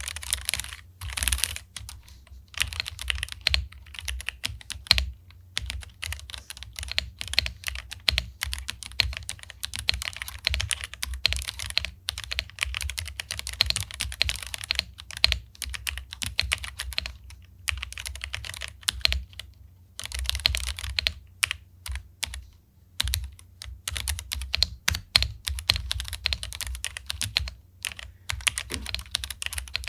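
Typing on a Jedel WKL-100 75% mechanical keyboard: a fast, continuous run of keystroke clacks with a few brief pauses.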